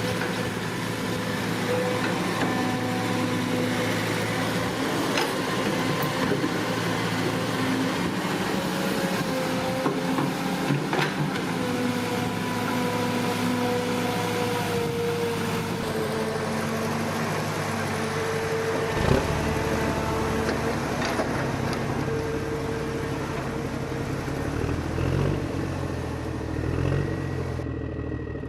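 Electric motors of a radio-controlled Huina toy excavator whining steadily, their pitch drifting as the machine works, with a few sharp clicks and one louder knock about two-thirds of the way through.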